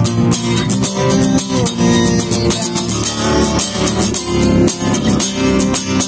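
Acoustic guitar strummed with a pick, one chord stroke after another over ringing chords.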